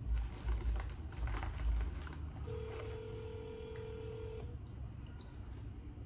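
Telephone ringback tone over a phone's speaker: one steady ring about two seconds long, starting about two and a half seconds in, while the dialled call waits to be answered. A few low thumps from handling the phone come in the first two seconds.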